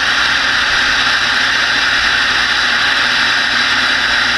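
Steady receiver static from a Connex CX-33 SSB ten-meter radio's speaker, tuned to a quiet stretch of band with no signal coming through.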